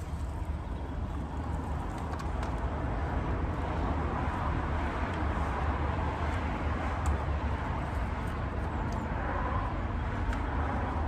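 AVA P60 electric pressure washer running steadily, its motor humming under the hiss of the water jet spraying.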